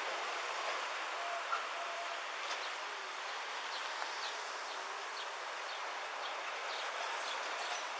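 Steady outdoor background noise, a hiss-like rush with faint short chirps and ticks over it.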